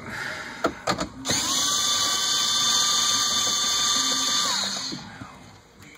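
Cordless drill/driver backing out the 10 mm bolt that holds a lower dash panel. A few clicks as it is set on the bolt, then the motor runs at a steady pitch for about three seconds and winds down.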